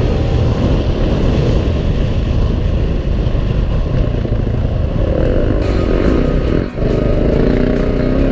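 KTM off-road motorcycle engine running under way over heavy wind rumble on the mount-camera microphone. In the second half the revs rise and fall, with a brief drop in throttle about six and a half seconds in.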